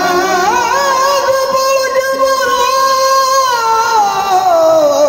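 A qawwali singer holds one long sung note on a steady pitch, which slides downward over the last second or so.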